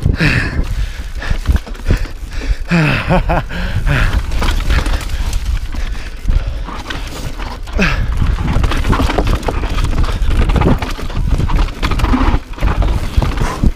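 Mountain bike clattering down a rough trail: chain and frame rattle and rapid clicking over the ground, with a whirring that drops in pitch a few times as the bike slows. Wind rumbles on the microphone throughout.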